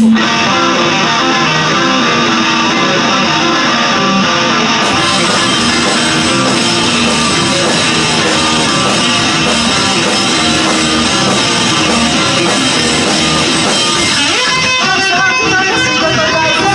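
Live rock band playing loud through the club's PA: distorted electric guitars, bass and drums.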